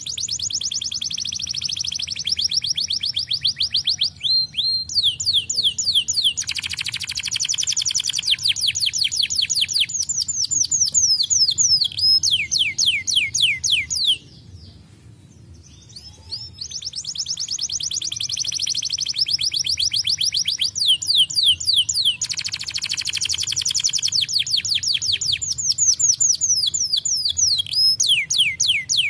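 Domestic canary singing long, fast trills of rapidly repeated falling notes. It pauses for about two seconds midway, then starts again.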